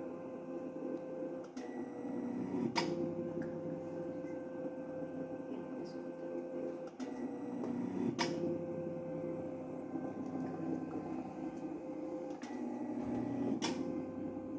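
Ambu-bag mechanical ventilator prototype running: a steady motor hum, with its breathing cycle repeating about every five and a half seconds. Each cycle begins with a light click and ends with a sharper click about a second later, three cycles in all.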